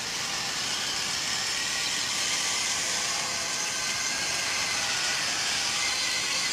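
Electric gear motors of a small four-wheel mecanum-wheel robot running steadily as it drives in a circle on carpet, a high hissing whine with no breaks.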